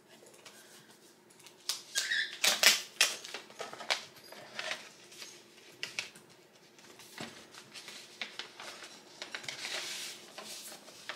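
A paper envelope being handled and torn open, with irregular crinkles and crackles, a cluster of sharper paper crackles about two to three seconds in, and a longer sliding rustle near the end as the card is drawn out.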